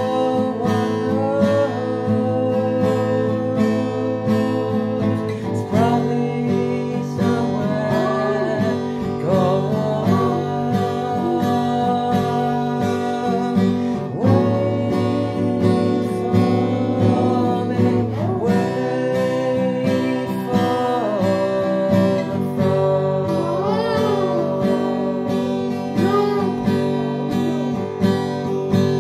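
Steel-string acoustic guitar strummed steadily, with a man singing a melody over it in phrases.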